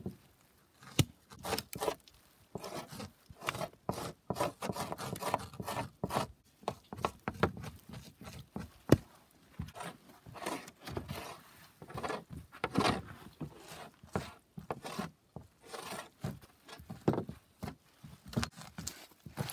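Butter knife scraping fat and meat off a partly frozen salmon skin on a plywood board, in many short, irregular strokes.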